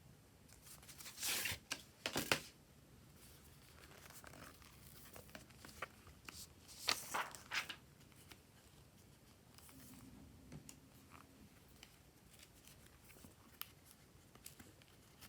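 Hands working glossy slime, stretching and pressing it, with two louder spells of sticky tearing and crackling, about a second in and about seven seconds in, and faint small clicks and pops in between.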